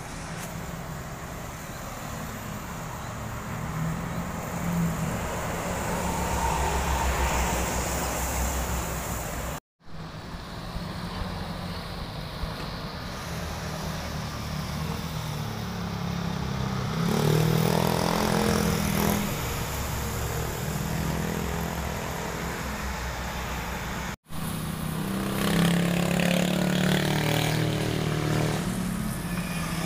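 Road traffic passing: trucks, cars and motorcycles driving by, their engines swelling and fading as each one passes. The sound cuts out for a moment twice.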